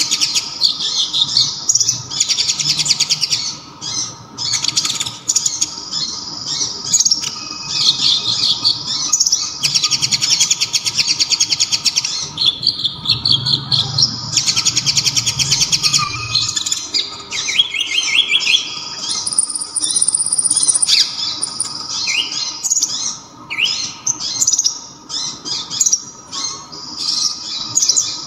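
Kolibri ninja (a sunbird) singing: loud, high, very rapid trills in repeated bursts of a second or two. Later come more varied notes and short rising whistles.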